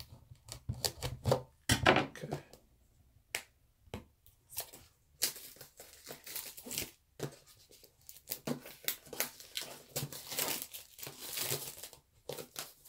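Cardboard product-box packaging being torn open and handled: scattered sharp clicks and taps for the first few seconds, then a longer stretch of tearing and crinkling from about five seconds in.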